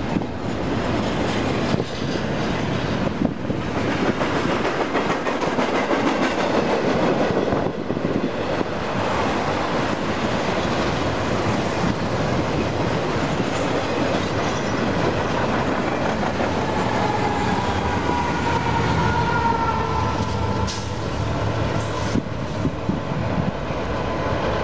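Union Pacific intermodal freight train rolling past: a steady rumble and clatter of railcar wheels on the rails, with a faint high steady tone creeping in around two-thirds of the way through.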